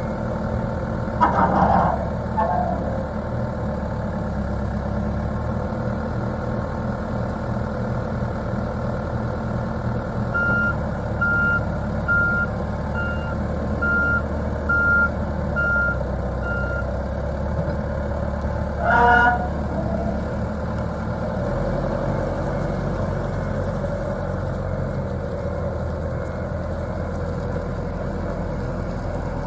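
Volvo BL70B backhoe loader's diesel engine running steadily. Its reverse alarm beeps about eight times in a row in the middle. Two short loud knocks come, one near the start and one about two-thirds of the way through.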